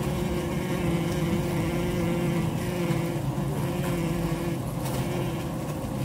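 Honeybee colony humming inside the hive, picked up by a microphone among the combs: a dense, steady buzz with a low drone of several held tones.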